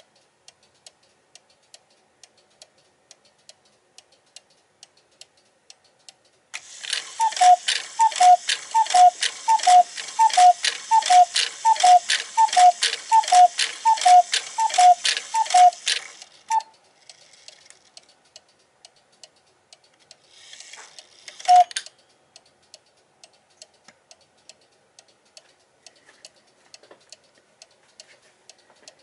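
Weight-driven clock ticking steadily about twice a second. Several seconds in, its strike train runs for about ten seconds, a whirring mechanism sounding a two-note call, high then low, about a dozen times over, then one more brief run with a single note a few seconds later. The striking runs on because the rack stop lever is not seated in the rack.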